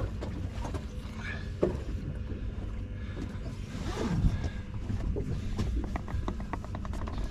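Steady low hum of a fishing boat's engine idling while the boat drifts. A couple of knocks on the deck come through it, then a quick run of clicks near the end.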